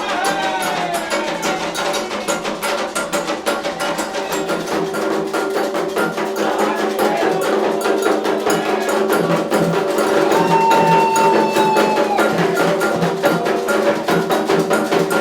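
Percussion music of fast, rapid strokes on a wood block or bell over drums, with a voice singing long held notes near the start and again about ten seconds in.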